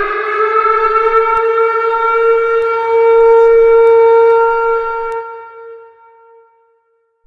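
Civil defense siren holding a steady wail as an attack warning, then fading out over the last couple of seconds.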